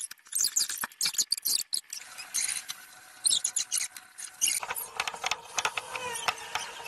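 Crumbly cookie dough being stirred in a plastic mixing bowl: a silicone spatula scraping against the bowl, a rapid, irregular run of scratchy clicks.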